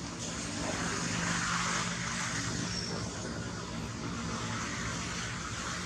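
A steady engine drone from a motor vehicle out of sight, swelling about a second in and then easing off a little.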